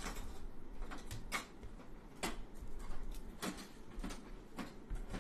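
Irregular light clicks and ticks, about a dozen, from small objects being handled off to one side.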